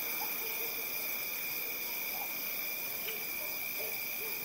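Night insect chorus: crickets trilling in a steady high-pitched drone, several tones layered. Over it come short, soft, low calls every so often.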